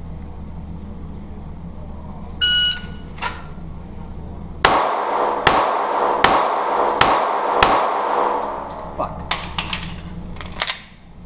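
A shot timer beeps once. About two seconds later a pistol fires five shots about 0.7 s apart, each echoing off the concrete walls of the bay. After a short pause, several more shots follow.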